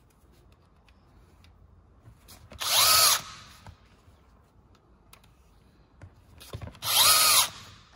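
Cordless drill driving screws through a steel conveyor-belt joint clip into the belt: two short runs of about half a second each, the motor's pitch climbing, holding and dropping away each time. Light clicks between the runs as screws are handled.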